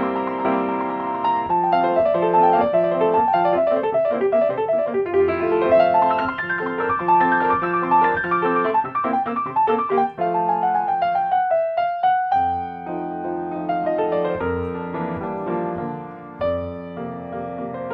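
Solo piano playing classical music: a melody over chords, with a quick run of notes about ten seconds in that gives way to a sparser single line for a few seconds before the chords come back.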